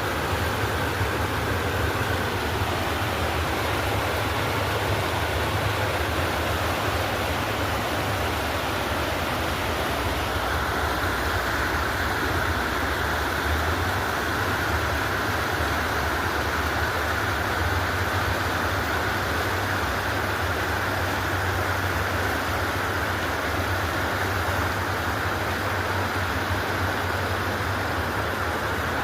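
River water rushing steadily, an even continuous roar with no breaks.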